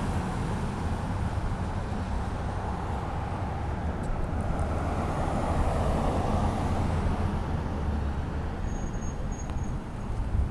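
Road traffic noise: a steady low rumble, with a vehicle passing that swells and fades about five seconds in.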